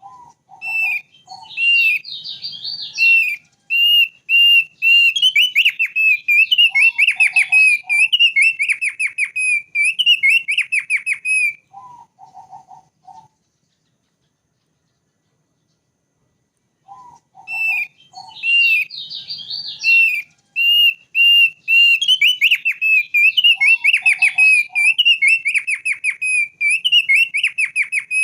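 Thick-billed white-eye (opior paruh tebal) singing a fast run of sweet whistled notes in two long bouts, separated by a pause of a few seconds about halfway through.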